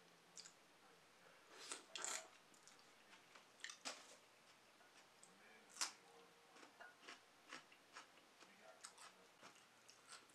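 Faint close-miked eating: chewing and wet mouth clicks, with a sharp crunch about halfway through as a cucumber spear is bitten.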